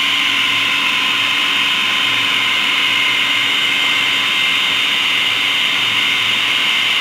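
Electric food processor running steadily, its blade chopping boneless chicken cubes with onion, garlic and spices into a fine mince.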